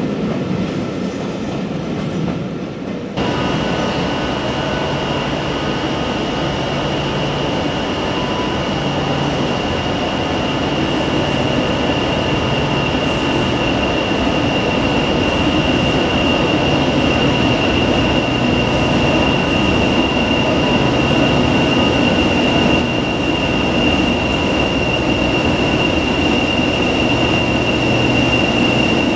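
A diesel locomotive hauling coaches approaches, its engine running with a low pulsing hum and a steady high whistle over it, and the sound slowly gets louder. It starts abruptly about three seconds in; before that there is a quieter stretch of a departing train.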